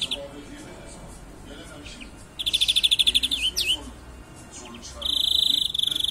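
European greenfinch singing: a fast rattling trill about two and a half seconds in, then a long buzzing note from about five seconds in, with faint chirps between. A song that a fancier rates as bad, its phrases full of faults.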